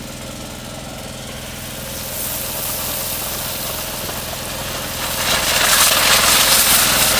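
Hot groundnut oil in a pan over a wood fire, sizzling and building to a loud hiss about five seconds in as blended tomato puree is poured into it. A steady machine hum runs underneath.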